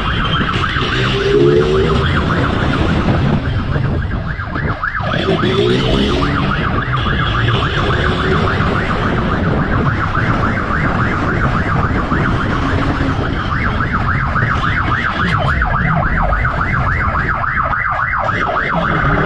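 Police motorcycle siren sounding a fast, repeating warble over the rumble of the motorcycle's engine during a pursuit.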